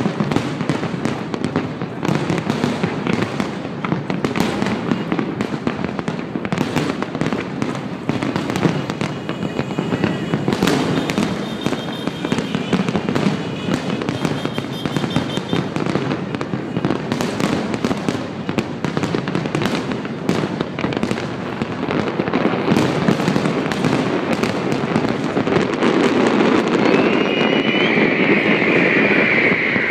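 A fireworks display going off continuously, with a dense run of bangs and crackling bursts. Near the end, a high whistling tone falls in pitch over the bursts.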